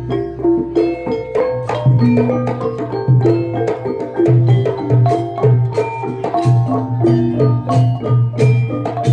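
Gamelan music for a Banyuwangi Barong performance: metal mallet instruments play a fast repeating melody over a low tone that pulses about twice a second, with sharp percussion strokes on the beat.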